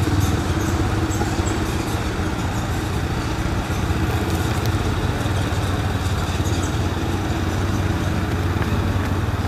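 Quad ATV engine running with a steady low drone as the machine moves off along the trail.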